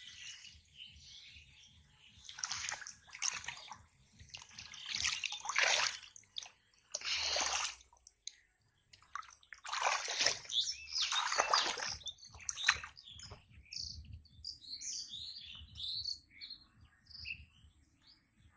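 Muddy water splashing and sloshing in a string of short bursts as hands grope and scoop through a shallow flooded field. Near the end, small birds chirp.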